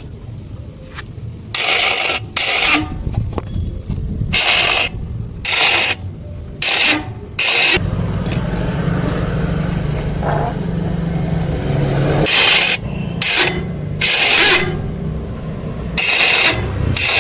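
Starter motor running with a rough, snoring growl: a low hum, steadier from about eight seconds in, broken by short scraping bursts every second or two. The mechanic puts this snoring, heavy-running sound down to worn carbon brushes or a dry bearing on the armature shaft.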